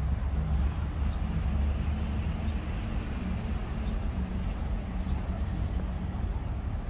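Steady low rumble of motor traffic, with faint scattered ticks above it.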